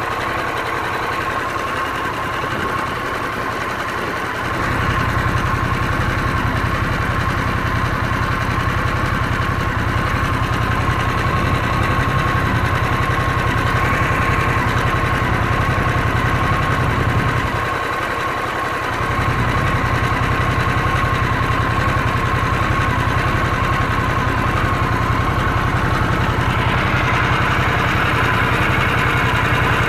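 Harley-Davidson Sportster S's Revolution Max 1250T liquid-cooled V-twin running at idle, a steady, even engine note. The deep low rumble is missing for the first few seconds, then comes in, drops out again for about a second past halfway, and returns.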